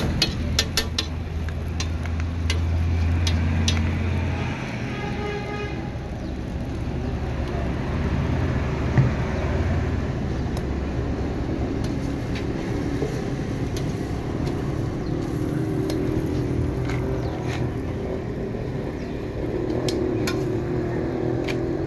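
Roadside traffic noise with a low engine hum for the first few seconds. Scattered sharp metallic clicks and taps from the metal spatula and utensils at an iron griddle come as a quick cluster at the start and a few more later on.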